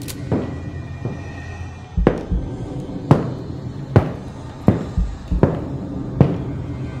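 Tense film score: a low steady drone under sharp percussive hits about every three-quarters of a second, with deep double thumps like a heartbeat every three seconds or so.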